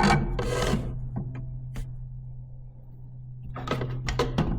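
Small metal parts being handled: clicks and rattles of magnets, a nut and a plastic solar LED light fixture being fitted together by hand, over a steady low hum.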